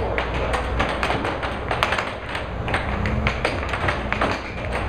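Air hockey puck clacking sharply and irregularly against the players' mallets and the table rails during a fast rally, over the steady low hum of the table's air blower.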